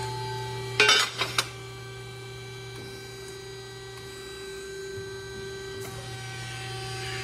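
The hydraulic drive of a CNC press brake humming steadily while the ram presses a bend into a sheet-metal part, with a few sharp knocks about a second in. The hum shifts in tone about six seconds in.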